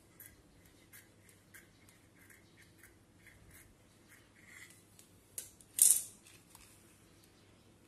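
Scissors snipping through thin, crinkly white cloth in a run of short snips. Just before six seconds in, a brief, much louder rustle of the sheet is heard as it is spread flat.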